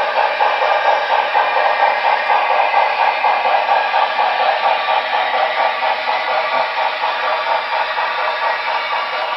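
Model train, a Broadway Limited Santa Fe 2-8-2 steam locomotive pulling reefer cars, running steadily around the layout track with an even, fast rhythmic clatter.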